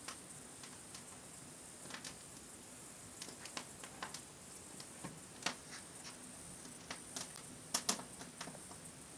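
Quiet steady hiss with faint, irregular clicks and crackles, a few sharper ones about five and a half and eight seconds in.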